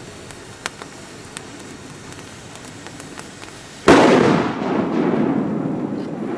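A large firecracker going off with one sharp, very loud bang about four seconds in, followed by a long rolling echo that slowly fades. Two faint ticks come before it.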